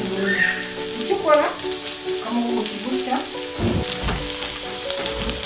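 Chicken pieces sizzling as they fry in a pan, with music in the background.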